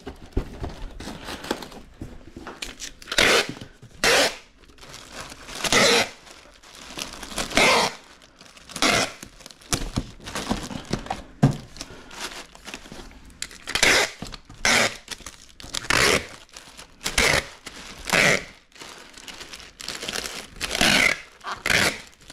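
Packing material being handled and fastened: about a dozen short tearing and crinkling bursts, one every second or two, like tape being pulled and plastic wrapping being pressed down, with one sharp click midway.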